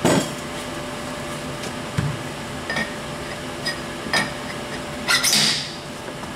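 Sharp metal knocks and clicks as a liquid-nitrogen-chilled cylinder sleeve is handled and set into the bore of a billet Subaru engine block, with a longer, louder rush of noise about five seconds in as it goes down into the bore. A steady machine hum runs underneath.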